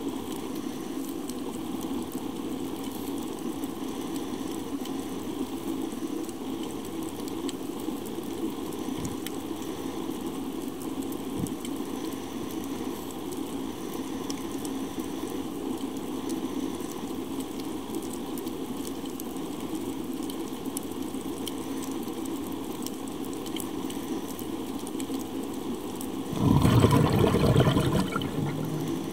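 Underwater ambience through a diving camera's housing: a steady low rushing hiss with a fine crackle of clicks. Near the end, a loud rush of a scuba diver's exhaled bubbles from the regulator lasts about two seconds.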